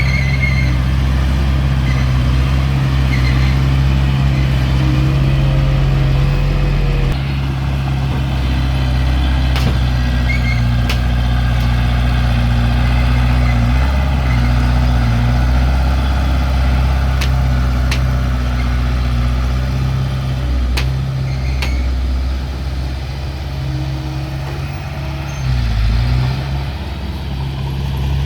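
Heavy-equipment diesel engine running steadily, with a few sharp metallic clanks and a brief dip in engine pitch near the end.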